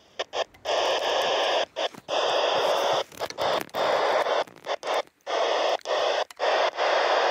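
Handheld FM radio's speaker hissing with static that cuts in and out abruptly over and over, as the squelch opens and closes on a fluttering ISS downlink signal.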